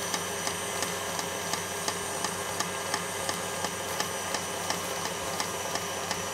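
A machine running with a steady hum and an even ticking about three times a second.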